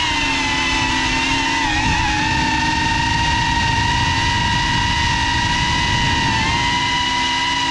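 FPV quadcopter's electric motors and propellers whining steadily, the pitch dipping and recovering briefly with throttle changes about two seconds in and again near the end, over a low rumble of wind on the microphone.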